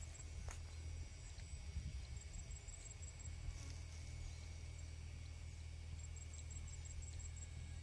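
Faint outdoor background: a steady low rumble with a few short runs of rapid, high-pitched chirping and scattered faint clicks.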